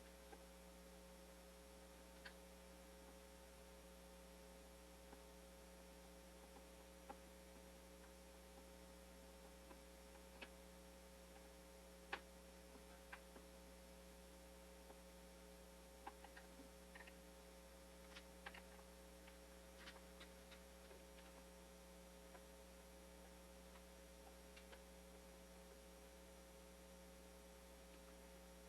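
Near silence: a steady faint hum with scattered faint clicks and taps, one sharper click near the middle.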